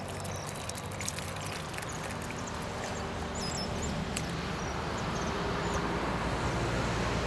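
Water splashing and sloshing as carp fingerlings are scooped from a seine net and poured into a water-filled cooler, over a low engine hum that grows louder toward the end. A few short, high bird chirps come through in the middle.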